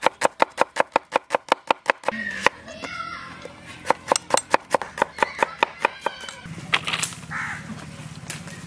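Kitchen knife slicing an onion on a wooden board: quick, even chops at about five or six a second, in two runs with a pause of a second or two between them.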